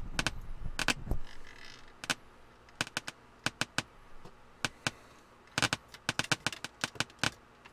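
Irregular crackling and popping from the Marantz 2500 receiver's speaker: the fault of its crackly tuner section, which cuts in and out and is being traced through the IF chip and transistor.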